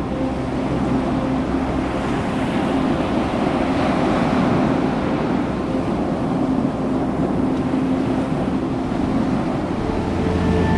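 Ocean surf washing on the beach, a wave swelling to its loudest about four seconds in and then easing off, with a faint steady low hum underneath.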